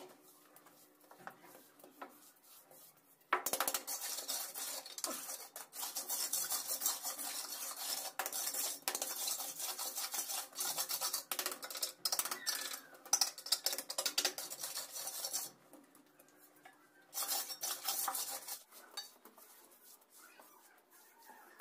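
Steel hand trowel scraping and spreading freshly poured terrazzo mix across a floor, a long run of quick, gritty scraping strokes that starts a few seconds in and stops about three quarters through, followed by a shorter burst.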